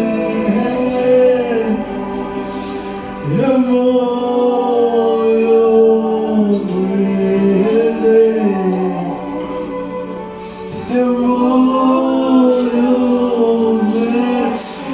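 Slow gospel worship chorus sung with long held notes, in three drawn-out phrases with short breaths between them.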